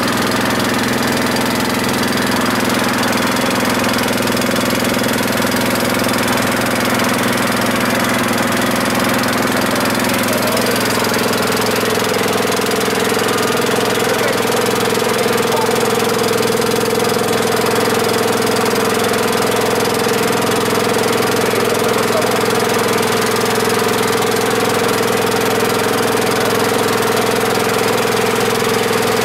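Engine of a wooden longtail river boat running steadily under way, heard from on board. Its note changes about ten seconds in, with one tone coming up stronger, then holds steady.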